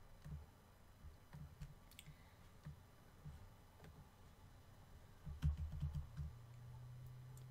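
Faint computer mouse clicks, a few scattered ones, then a quick run of low knocks a little after five seconds in, followed by a faint steady low hum near the end.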